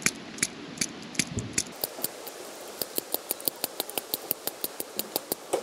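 A tapered roller wheel bearing being hand-packed with grease, slapped again and again into a palmful of grease: a series of short sticky clicks and smacks. They come faster, about four or five a second, in the second half.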